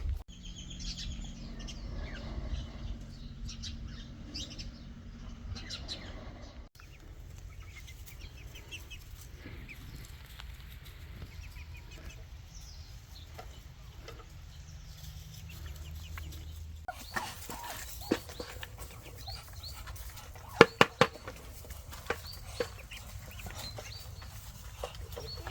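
Chickens clucking, with a cluster of short, sharp calls in the last third. The background changes abruptly twice.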